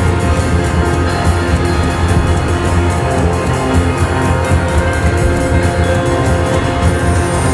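Instrumental jazz trio music with a droning bass, sustained keyboard tones and a quick, even pulse of cymbal strokes from the drums.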